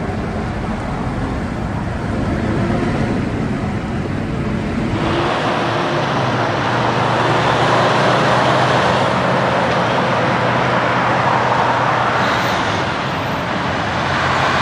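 Road traffic with semi-trucks and cars driving past: steady engine and tyre noise, with a low truck engine tone in the middle.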